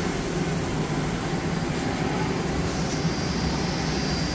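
Mori Seiki SL-25 CNC turning centre running through a warm-up cycle: a steady mechanical hum and whir with a low drone. A faint high whine joins about two-thirds of the way through.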